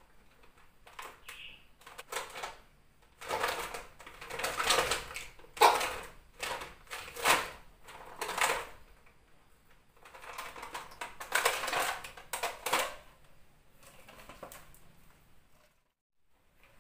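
A plastic bottle trap holding a caught tokay gecko crinkles and clatters in irregular bursts of sharp crackles as it is gripped and handled. There are two main spells of crackling with a short lull between them.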